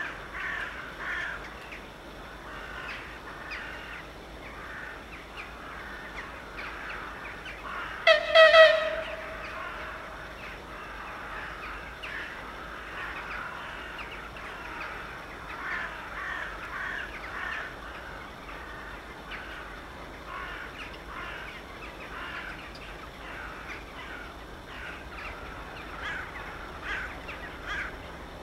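Crows cawing again and again. About eight seconds in, the approaching TEP70 diesel passenger locomotive gives a short, high-pitched horn signal lasting under a second, the loudest sound here.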